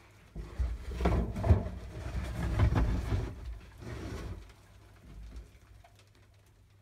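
A broom brushing and scraping across a floor crowded with young grasshoppers. The rustling strokes are loudest in the first three seconds and die away after about four and a half.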